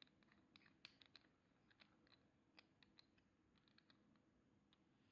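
Very faint, scattered clicks and ticks of fingers handling a Platinum #3776 Century fountain pen as its clear resin barrel is unscrewed from the section.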